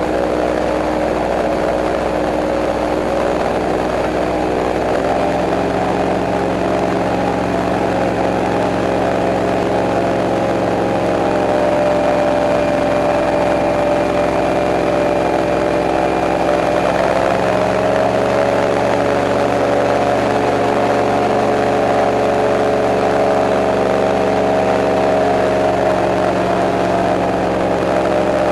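Airboat engine and propeller running steadily with the boat underway, the engine note shifting slightly twice.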